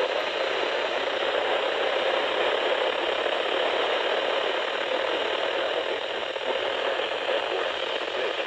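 Steady hiss and static from a radio receiver's speaker, with no signal coming through.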